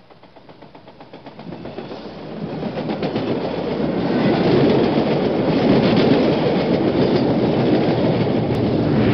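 A train rolling on rails, its wheels clattering, growing steadily louder over the first four seconds or so and then running on at full strength.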